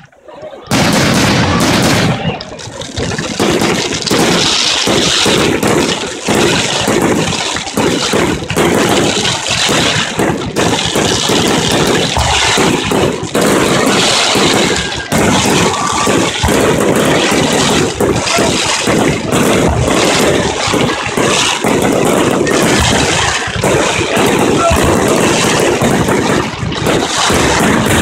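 Fireworks display: a dense, continuous barrage of aerial shell bangs and crackling stars, reaching full loudness about a second in.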